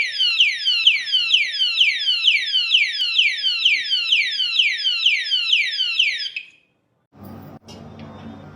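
Alarm padlock's built-in siren sounding: a fast, loud train of falling electronic chirps, about three a second, that cuts off suddenly about six and a half seconds in, leaving a low background hum.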